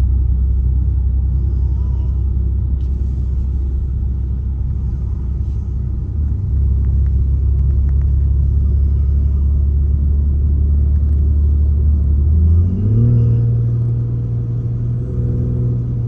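Car cabin drone of a BMW X3 M40i driving on a snowy highway: a steady low road and engine rumble. About three quarters of the way through, the engine note steps up in pitch and holds.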